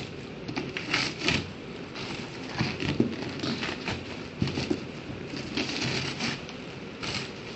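Packaging being handled and pulled open by hand: irregular rustling and crinkling with short scrapes and light knocks, louder bursts about a second in and around the middle.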